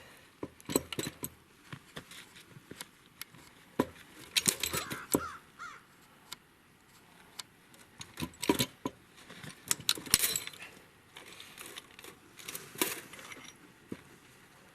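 Hand tools clicking and knocking against metal and ice on a frozen engine, in irregular clusters of sharp taps with quiet gaps between: chipping ice out from around a head bolt frozen in under the valve cover.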